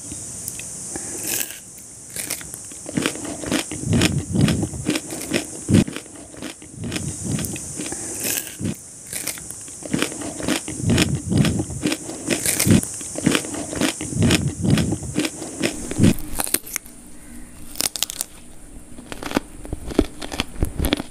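Close-miked eating: crunching bites of raw onion and chewing mouthfuls of mutton biryani eaten by hand, with many irregular mouth clicks.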